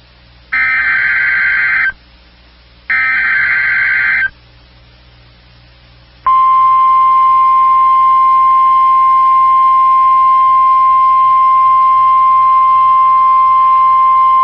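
NOAA Weather Radio Emergency Alert System alert: the last two bursts of the SAME digital header, each a harsh data screech about a second and a half long. About six seconds in comes the steady 1050 Hz weather radio alert tone, which holds unbroken and signals that a severe thunderstorm watch message follows.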